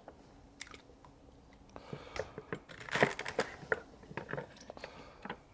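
Faint crisp crunching and rustling with scattered light taps, loudest around the middle: celery sprigs being handled and put into a kazan.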